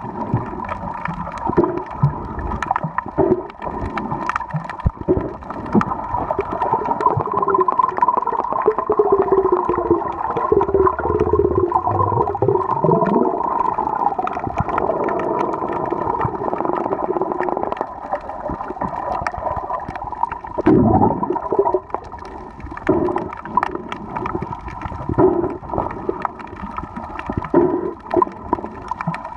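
Muffled underwater sound picked up by a camera held under water: constant gurgling and sloshing with many small clicks and knocks. A wavering, gliding whine runs through the middle.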